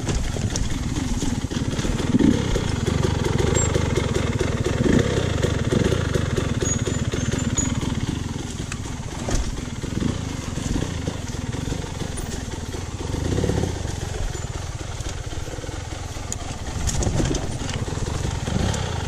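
Dirt bike engine running at low trail speed, the revs rising and falling as the throttle is opened and closed.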